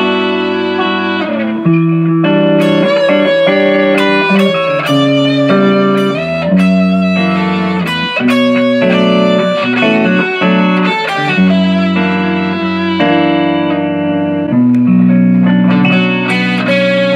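Amplified Les Paul-style electric guitar playing a slow progression of ringing chords and single notes, each held for a second or two before the next.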